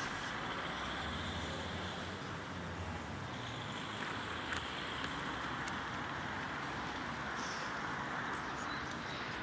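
Steady outdoor road-traffic noise, with a low vehicle rumble in the first few seconds.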